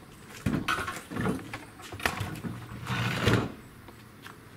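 Footsteps and camera handling noise from walking around the truck: a run of irregular thuds and rustles that dies down about three and a half seconds in.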